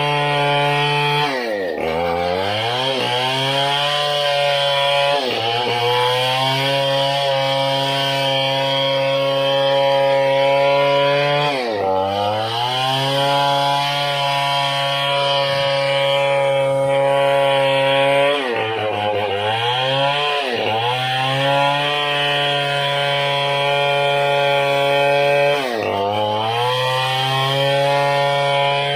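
Chainsaw ripping lengthwise through a long ironwood beam at high revs. The engine note dips and climbs back about six times as the saw is eased or loaded in the cut.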